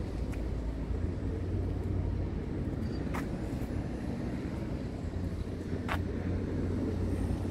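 Scania R truck's diesel engine idling steadily with a low, even hum. Two short sharp clicks stand out, about three and six seconds in.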